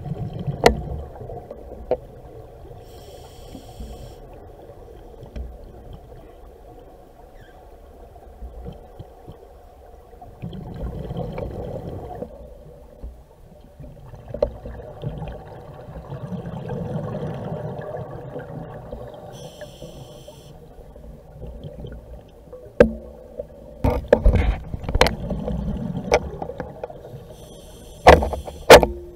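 A scuba diver breathing through a regulator, heard through an underwater camera housing: swells of bubbling exhaust every several seconds, short hisses and scattered sharp clicks and knocks, most of them near the end.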